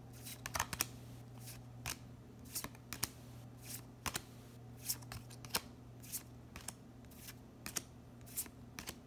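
Trading cards being slid and flicked one at a time from the front to the back of a small hand-held stack, giving short crisp card sounds about two or three times a second at an uneven pace, over a steady low hum.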